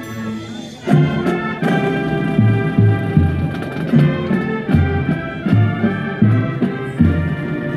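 Marching band playing: brass horns and percussion come in loudly about a second in after a soft held passage, with repeated accented chords over low bass notes in a heavy rhythm.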